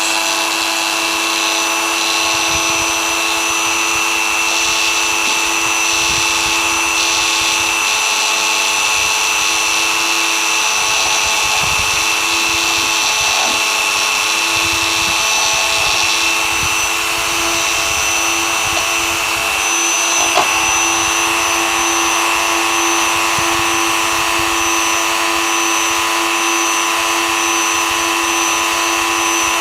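Dremel rotary tool fitted with a 3 mm end mill, running steadily at high speed with a constant whine. A brief click comes about two-thirds of the way through.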